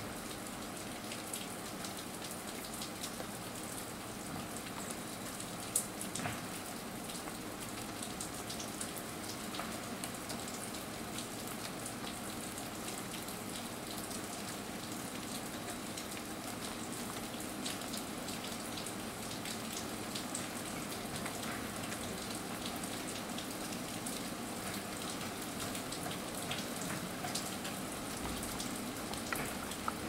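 Steady even hiss with a few faint, scattered taps and one sharper tap about six seconds in. The taps fit a pileated woodpecker pecking and prying at the bark of a dead tree while foraging for grubs.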